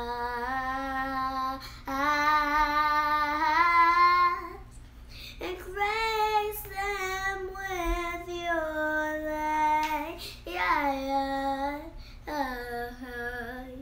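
A young girl singing alone without accompaniment, in several phrases with long held notes, one phrase climbing to a high held note.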